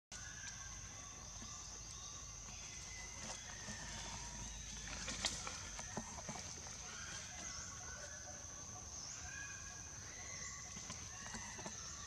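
Outdoor forest ambience: a steady, high insect drone runs throughout, with scattered short chirping calls and a few light clicks.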